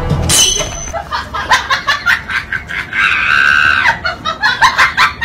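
A quick falling swoosh, then a high-pitched voice laughing in rapid bursts, about four a second. About three seconds in comes one held, scream-like cry lasting about a second, then more laughing bursts.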